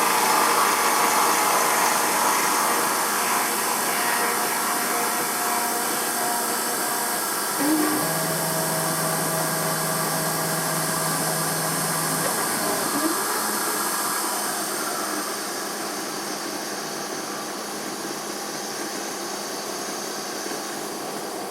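Emco F1 CNC milling machine running, its spindle turning a 12mm four-flute carbide cutter roughing cast aluminium, with the axis drives humming a steady low tone for a few seconds midway. The sound gets gradually quieter through the second half.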